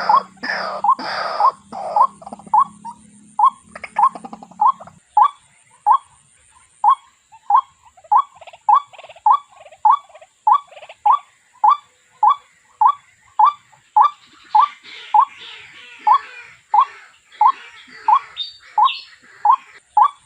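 White-breasted waterhen calling: one short note repeated steadily, a little under two a second, in a long monotonous series. It opens loud and rough in the first couple of seconds, and from about two-thirds of the way through, harsher, scattered calls join in behind the steady notes.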